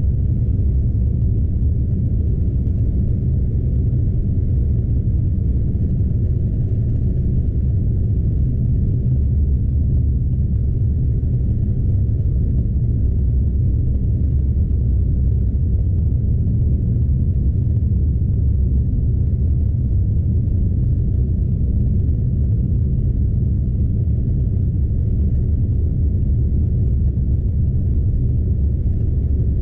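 Scania truck's diesel engine and tyres heard inside the cab while driving, a steady low drone with no changes in pace.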